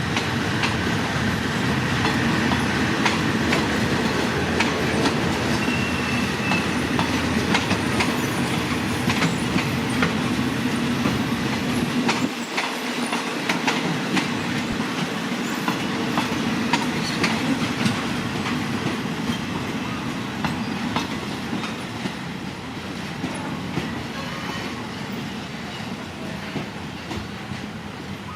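Passenger train hauled by an old diesel locomotive rolling by, its wheels clacking over rail joints with a brief wheel squeal. The sound eases off over the last few seconds.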